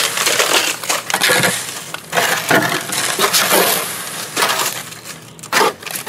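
Portable drum concrete mixer tipped to pour, its turning drum churning wet concrete and gravel that rattles and spills out in surges, weakening near the end.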